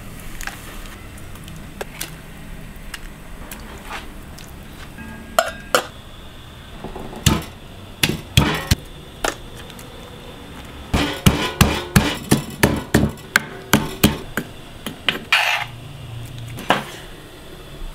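Wooden pestle pounding garlic and chili in a heavy stone mortar: dull knocks, a few scattered and then a quick run of strikes of about three or four a second midway.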